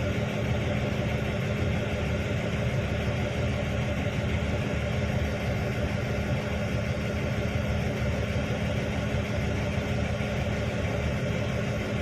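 Large diesel engine of a Hitachi 1200 excavator running steadily, a constant low drone with no revving or pauses.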